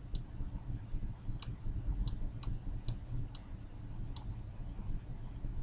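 Light, sharp taps of a stylus on a pen tablet as the answer is hand-written, about seven clicks at irregular intervals over a low steady hum.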